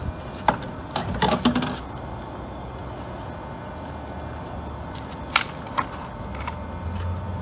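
Clicks and knocks as the battery power pack of a 12 V portable pressure washer is unlatched and lifted out of its unit: a quick run of clicks about a second in, then a few single knocks later on.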